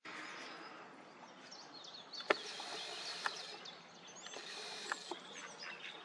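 Small birds singing and chirping in quick, high, rising and falling phrases over a steady outdoor hiss, with three sharp clicks standing out above them.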